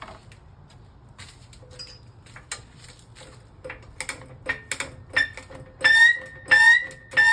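Floor jack being pumped up under the front steering knuckle to take the load off the sway bar link. Scattered clicks come closer together, then about six seconds in a loud, high squeak comes with each handle stroke, three of them.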